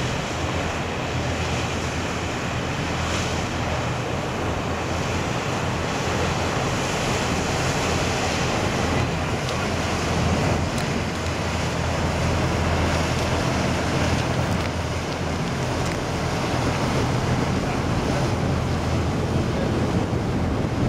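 Steady low drone of a ferry's engines under a constant rush of wind on the microphone and water.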